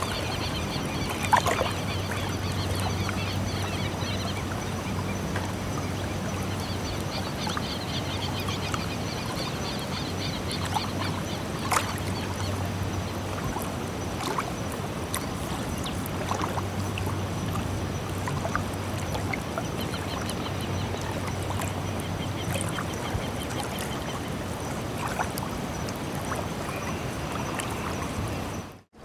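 Seaside ambience: a steady wash of sea noise, with repeated bursts of rapid high chattering bird calls and a low hum that swells and fades several times. A few sharp clicks stand out, the loudest about a second in and near twelve seconds.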